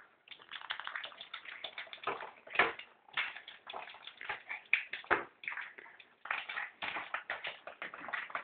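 Ping pong balls tapping and clicking on a tile floor as a dog noses and pushes them around: a rapid, irregular patter of light taps, with a couple of louder knocks about two and a half and five seconds in.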